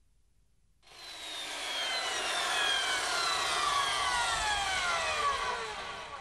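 Logo sound effect: a swelling whoosh of noise, like a jet passing, with several tones gliding slowly downward. It starts about a second in and fades near the end.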